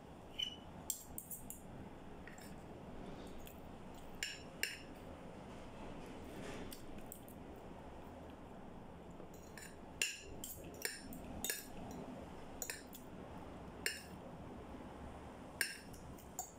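A metal spoon and fork clinking and scraping on a plate as food is scooped up, in about fifteen short, sharp clinks at irregular intervals.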